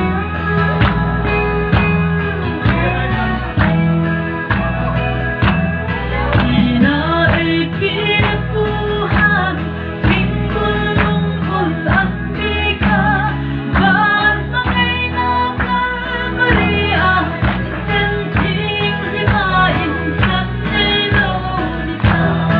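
Loud music with singing over a steady, evenly spaced beat.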